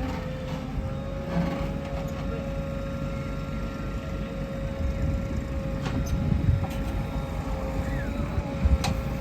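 Heavy diesel machinery running steadily: a low engine rumble with a steady whine over it and a few sharp knocks.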